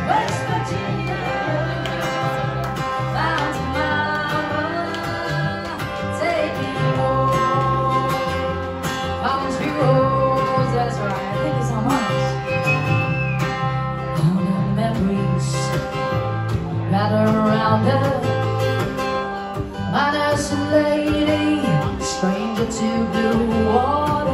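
Live acoustic music: singing over a strummed acoustic guitar, with an upright double bass playing the bass line.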